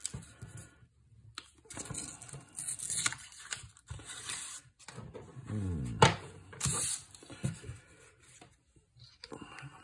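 A paper band being pushed and slid off a deck of game cards, with paper rustling and scraping, then the cards being fanned and handled. A sharp tap about six seconds in is the loudest sound.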